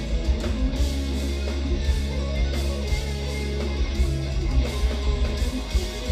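Instrumental progressive metal played live by a band: intricate eight-string electric guitar parts over a heavy low end, with steady drum hits and cymbal crashes.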